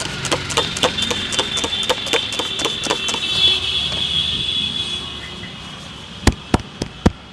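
Head-massage strokes: hands chopping and tapping on an oiled scalp, about four strokes a second, with a steady high whine in the background for the first few seconds. Near the end come four loud, sharp hand slaps or claps.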